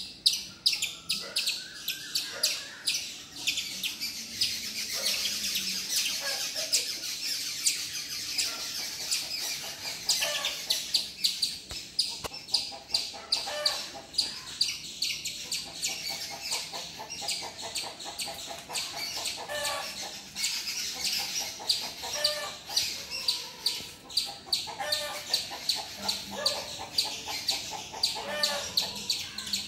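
A squirrel giving a long run of sharp, high chips, about three to four a second, the repeated alarm call it makes at a nearby predator such as a cat. Other bird calls, including a fowl clucking, come in now and then.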